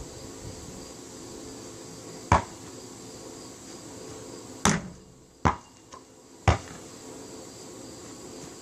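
Basketball thuds: one hit about two seconds in, then a louder hit near the middle followed by two more bounces about a second apart.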